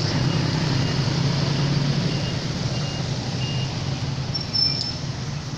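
Road traffic: a motor vehicle's engine and tyres on a wet road, a loud steady rumble and hiss that slowly fades. A few faint short high tones sound over it, one brighter about four and a half seconds in.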